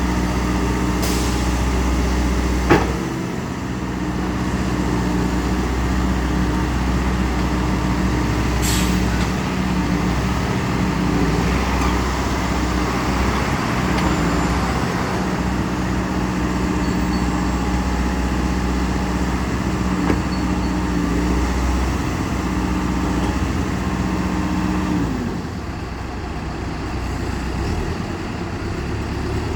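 CAT 420E backhoe's diesel engine running steadily, with a sharp click about three seconds in and a brief hiss around nine seconds. Near the end the engine note drops lower.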